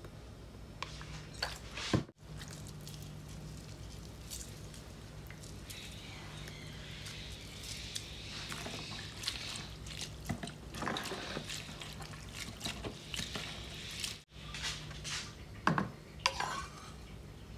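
A spoon stirring and scraping a wet chili-paste and coconut-milk dressing in a plastic bowl: soft squelching with light clicks and knocks, over a low steady hum. Near the end a spoon scrapes ingredients from a small bowl into the mix.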